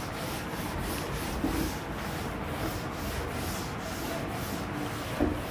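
Eraser wiping marker writing off a whiteboard: a steady rubbing made of quick, repeated back-and-forth strokes.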